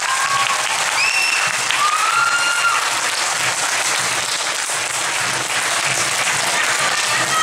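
Crowd applauding steadily, with a few voices calling out over the clapping in the first few seconds.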